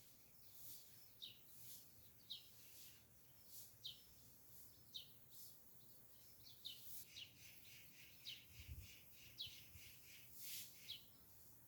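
Faint birdsong: a bird repeating short, falling chirps about once every second or so, with soft high hissy swells in between.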